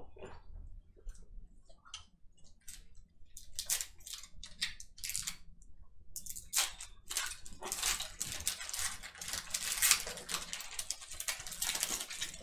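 Crinkling and crackling of a trading card pack's wrapper being torn open, with the cards being handled. The crackles are sparse at first, pick up about three seconds in, and come thickest in the second half.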